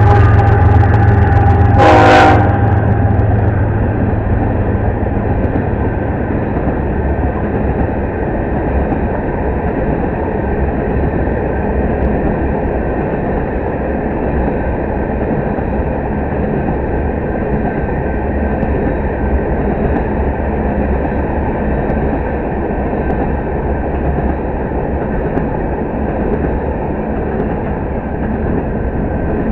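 Diesel locomotive horn sounding a chord that cuts off about two seconds in, over the deep engine rumble of the passing locomotives. After that, the steady rolling rumble of freight cars going by on the rails.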